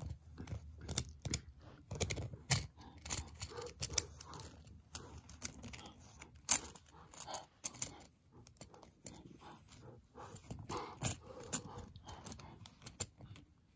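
Plastic toy jaguar and caiman figures handled and knocked together, giving irregular small clicks and knocks with rubbing between them.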